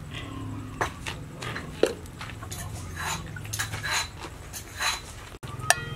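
Aluminium pot lid clinking lightly and irregularly on the pot as the soup boils under it, over a steady low rumble.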